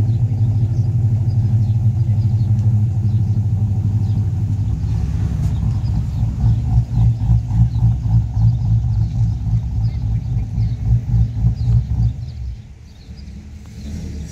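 Holden Commodore V8 engine idling with a steady low tone, turning into an uneven, pulsing idle about five seconds in, then dropping away sharply about twelve seconds in.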